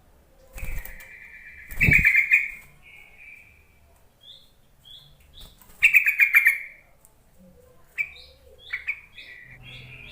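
Yellow-vented bulbul (trucukan) calling: bursts of bubbly chirps with short, higher single notes between them. Two dull thumps sound in the first two seconds.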